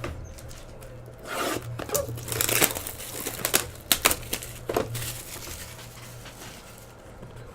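Plastic card packaging crinkling and tearing in irregular spurts as it is handled and crumpled, over a steady low hum.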